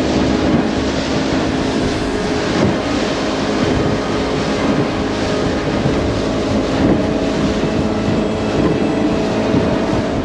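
Open motorboat running at speed on choppy sea: the engine's steady drone over the rush of water and spray, with wind on the microphone.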